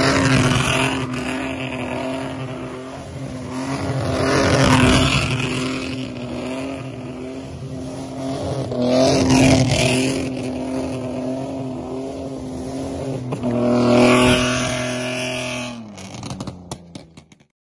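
BMW E30's swapped-in straight-six engine, tuned to be loud, revving hard while the car drifts on dirt. It swells and falls back in four loud surges a few seconds apart, then breaks up and stops near the end.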